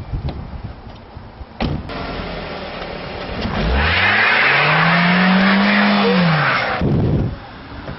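A thump about one and a half seconds in, then a car engine revs up hard, holds high and eases off, with loud rushing noise, as the car speeds away.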